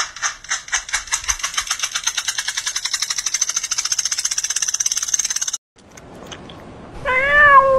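A loud rattling pulse speeds up from about four beats a second to a fast rattle, then cuts off suddenly. Near the end a cat gives one meow that rises and falls in pitch.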